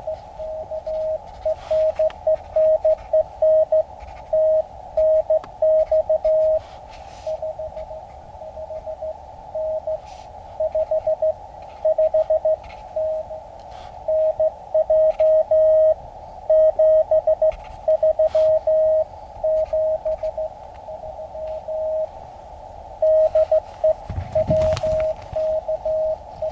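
Morse code (CW) from a ham radio transceiver's speaker: a single steady beep keyed on and off in dots and dashes, with short pauses between runs, over a narrow band of receiver hiss.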